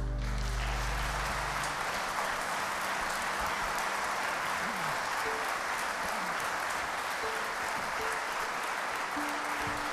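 Concert audience applauding steadily. The band's last held chord dies away under the first second or so of the clapping.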